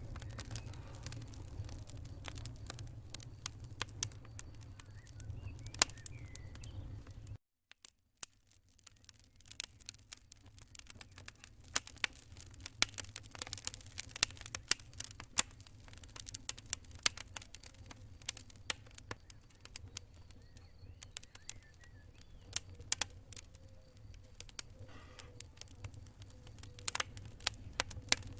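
Wood fire crackling in a fireplace: irregular sharp pops and snaps over a low rumble. The sound cuts out completely for about half a second around seven seconds in, then the crackling resumes with less rumble beneath it.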